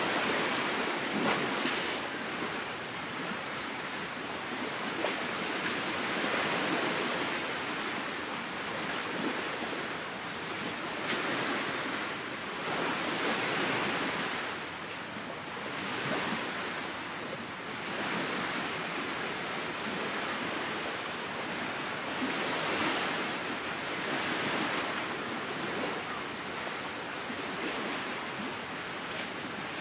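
Sea waves breaking on a beach: a steady rush of surf that swells and fades every few seconds.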